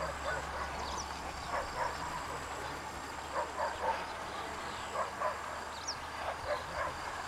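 Short, sharp animal calls, about a dozen in clusters of two or three, over a steady high insect whine.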